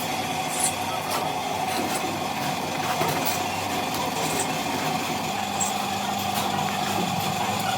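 Machinery running steadily with a constant mid-pitched whine, a lower hum coming in about five seconds in, and scattered light clicks.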